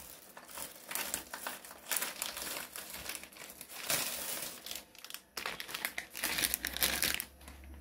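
Plastic wrapping of a spaghetti packet crinkling and rustling as it is handled, an irregular run of crackles.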